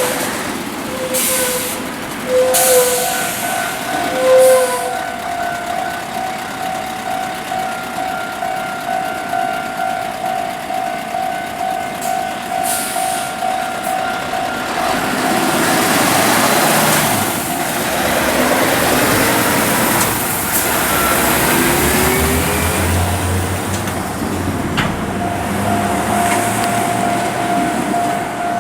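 Electronic level-crossing warning bell ringing with a steady, pulsing tone, with short air-brake hisses in the first few seconds. About halfway through, a heavy double-trailer truck rumbles across, its diesel engine rising in pitch as it pulls away, and the bell is heard again near the end.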